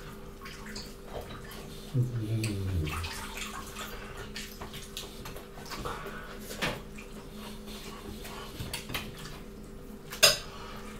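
Close-miked chewing and wet mouth sounds of people eating with their hands, with scattered small clicks of fingers and cutlery on plates. There is a short low "mm" hum about two seconds in, and a sharp clink of a spoon against a dish near the end.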